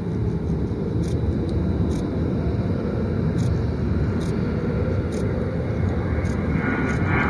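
A-10C Thunderbolt II's twin TF34 turbofan engines at takeoff power as the jet lifts off and climbs past: a heavy, steady rumble, with a high whine joining in near the end.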